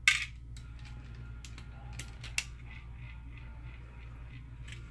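Small plastic and metal parts of a Trimline phone handset and a screwdriver being handled on a workbench. There is a sharp click right at the start, then a few lighter clicks and taps, over a steady low hum.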